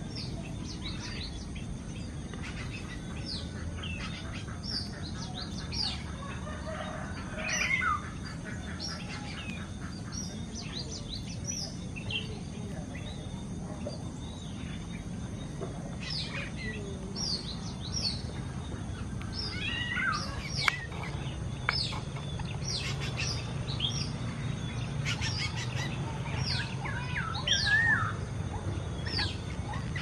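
Small birds chirping: many short, high calls, some sliding in pitch, busier in the second half, over a low steady rumble.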